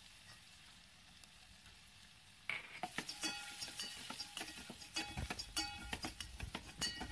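Chopped onions frying in oil in a stainless-steel pot: a faint sizzle, then from about two and a half seconds in a metal spoon stirring and scraping against the pot, with frequent clinks and brief metallic ringing.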